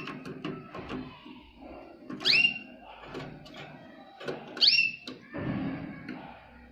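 Jaspe canary giving a loud, short rising whistled call twice, a couple of seconds apart, with softer chirps between. A brief rustling burst near the end.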